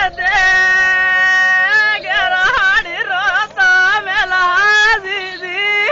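A high, wavering voice singing or wailing in long held notes with a strong wobble, in several phrases broken by short pauses.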